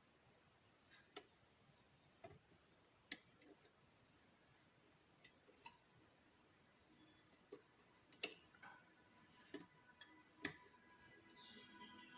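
Faint, irregular small metallic clicks, about a dozen spread unevenly, from a wire lever pick working against the levers inside a Henderson six-lever padlock.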